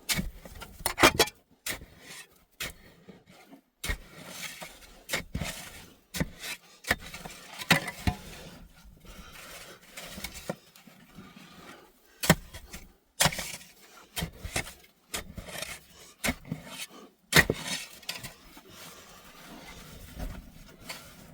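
Irregular series of sharp knocks and scrapes from hands-on work, about fifteen strikes spread unevenly, the loudest about a second in and again near the middle and toward the end.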